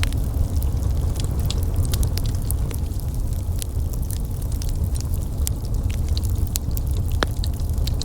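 Wood fire in a fireplace crackling: many small sharp pops scattered over a low steady rumble of burning, with one louder pop about seven seconds in.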